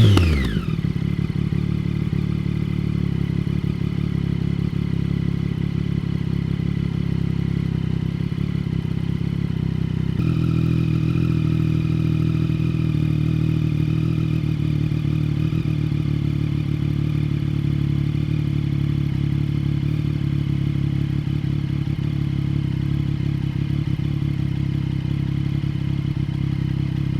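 Triumph Daytona 675's inline-three engine idling steadily through an aftermarket TaylorMade exhaust, settling from a falling rev right at the start. About ten seconds in, the idle note steps up slightly and a faint whine joins it.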